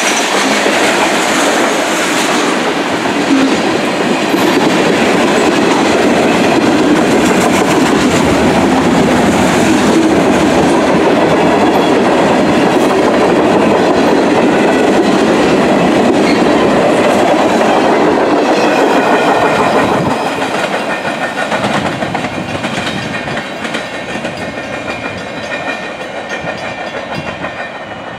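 Freight train cars, mostly tank cars, rolling past at speed, with a steady rumble and wheels clicking over the rail joints. About twenty seconds in the sound drops and fades as the train moves away.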